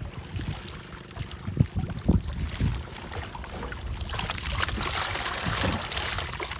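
Water pouring and splashing as a hand scoop net full of galunggong (round scad) is lifted dripping out of the fish-packed net and emptied, growing louder and steadier in the second half, with a few low thumps before it.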